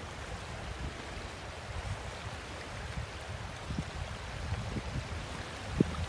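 Small waves lapping at a shoreline, a steady wash of water, with gusts of wind rumbling on the microphone and a brief low thump near the end.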